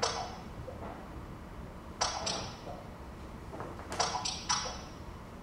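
Short electronic percussive notes produced by the Scrapple table as it reads the objects on it as a score, each starting sharply and ringing briefly before fading. One note comes at the start, two about two seconds in, and a quick run of three about four seconds in.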